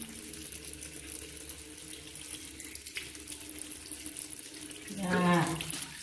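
Water running from a tap into a bathroom sink as a baby monkey's face is washed by hand. A short voice sound comes about five seconds in.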